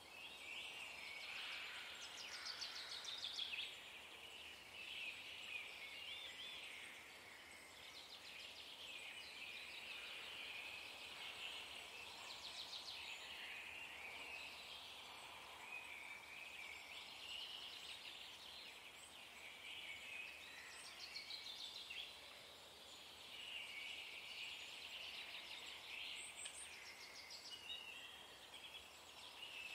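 Faint birdsong: birds chirping and trilling in short, overlapping phrases of rapid high notes, one after another.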